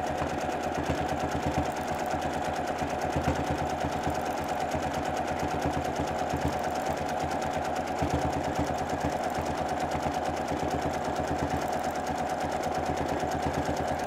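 Domestic sewing machine free-motion quilting, running steadily at speed with rapid, even needle strokes over a constant motor whine.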